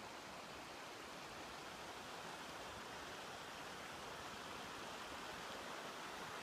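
Steady, faint rushing noise with no distinct events, swelling slightly toward the end.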